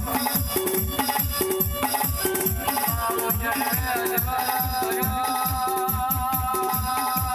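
Loud dance music with a heavy bass drum beating about four times a second, a held melody line above it, and a shaker-like rattle throughout.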